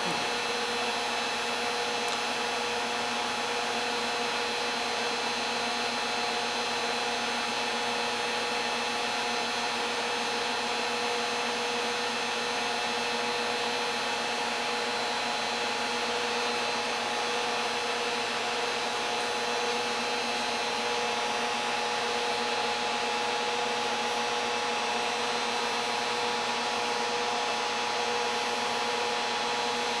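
A 10 kW resonant-lock induction heater running steadily under load as it heats an iron billet in its coil: an even hiss with several constant tones held throughout.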